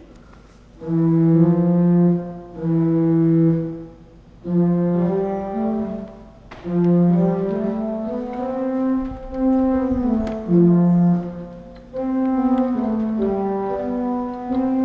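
1885 Fuller pipe organ being played: a slow tune in held notes, starting about a second in and moving phrase by phrase with short breaks between.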